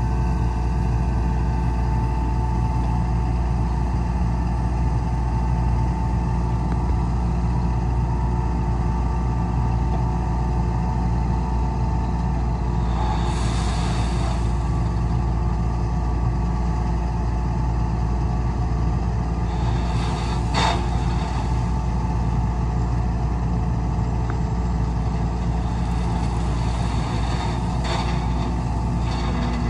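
Heavy diesel construction machinery running steadily, with brief hisses about 13, 20 and 28 seconds in.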